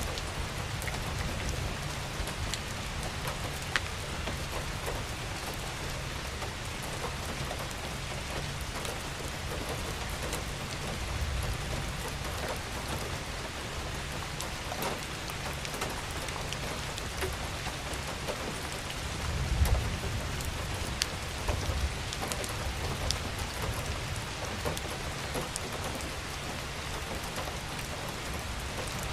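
Steady heavy rain falling on a surface, with scattered sharp drop ticks. A low rumble swells up about eleven seconds in and again, louder, about twenty seconds in.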